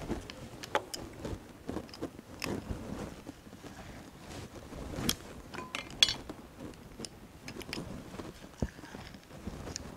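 Limes being pressed in a hand-held metal lime squeezer, with scattered sharp clicks and handling noise from the press and fruit.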